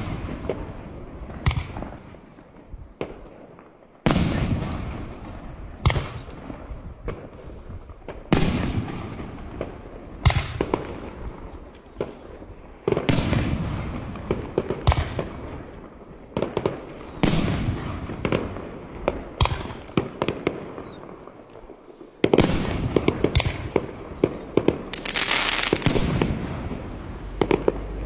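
Fireworks going off in a long series of sharp bangs, one every second or two, each trailing off in a fading rumble. Over the last few seconds the bangs come thick and fast with a dense crackle.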